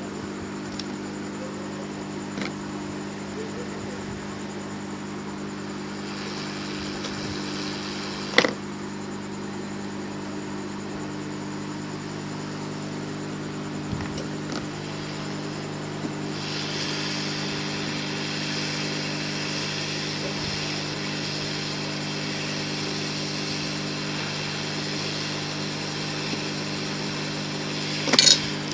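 A steady mechanical hum of several fixed low tones, with a few sharp clicks of tools on the workbench; a hiss joins in about halfway through and runs on.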